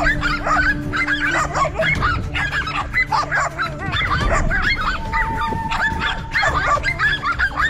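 Several dogs barking rapidly in a dense, overlapping chorus, holding a cornered lizard at bay.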